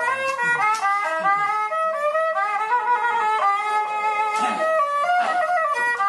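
Instrumental background music: a melody of changing held notes with some sharply struck notes.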